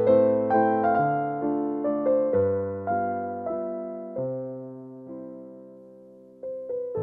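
Background music on solo piano: a gentle melody of separate notes. Past the middle a chord is left to fade for about two seconds, and the playing picks up again near the end.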